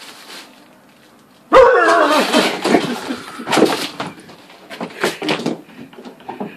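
Cats yowling and screeching loudly, starting suddenly about a second and a half in and breaking into several shorter cries.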